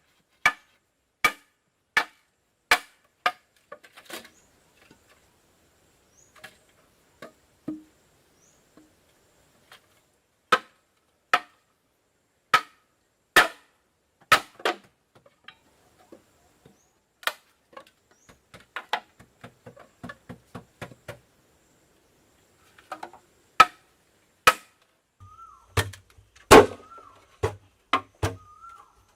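Sharp, separate chopping strikes on wood, at first about one every 0.7 seconds, then irregular with longer pauses. A faint wavering tone comes in over the last few seconds.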